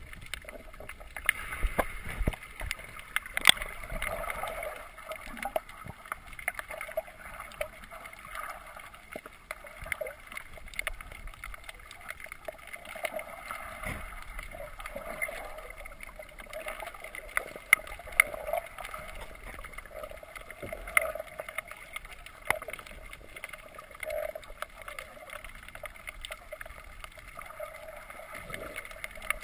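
Muffled underwater sound through a GoPro's waterproof housing: water gurgling and sloshing, with scattered sharp clicks throughout.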